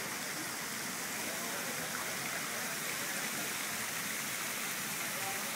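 Small pool fountain jets splashing steadily into a swimming pool.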